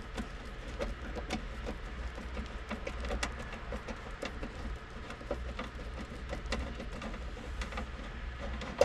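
Faint, irregular clicks and scrapes of a long screwdriver turning out a screw from an aircraft's metal cover plate, over a steady low hum.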